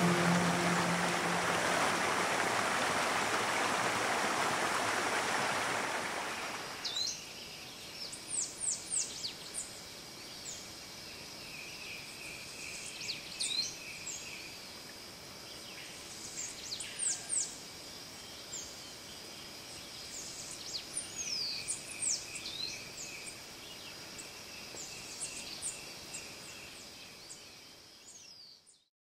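Water running over rock, a steady rush that stops suddenly about seven seconds in. Then tropical forest ambience: repeated high, falling whistled bird calls and a fast trill heard a few times, fading out near the end.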